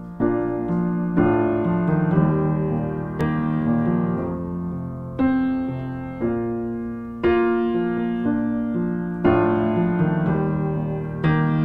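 Background music: a piano playing slow sustained chords, with a new chord struck about once a second and each one fading away.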